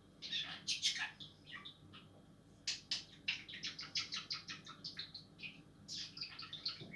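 Budgerigar chirping and chattering: a few chirps, then a quick run of short chirps, about six a second, from a little under three seconds in, and more chirps near the end.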